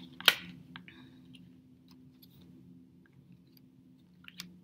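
Fortune-telling cards being handled and laid on a tabletop: a sharp tap about a third of a second in, a few light clicks, and another tap near the end, over a low steady hum.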